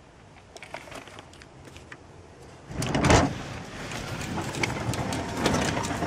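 A sectional garage door starts to move with a sudden thump about three seconds in. It then runs along its tracks with a steady rumble and rapid rattling clicks, its edge passing along newly fitted vinyl weather-stripping.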